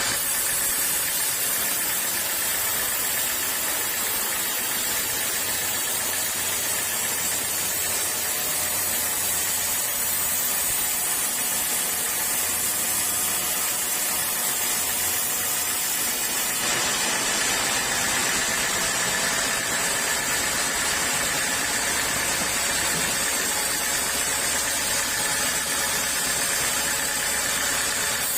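Sawmill saw running steadily, a continuous machine hiss and hum; about 17 seconds in the sound shifts suddenly and turns brighter and sharper.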